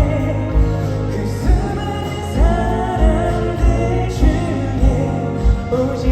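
Live band music from a pop ballad, with a steady kick drum beat about every 0.6 seconds under sustained, layered instrumental chords.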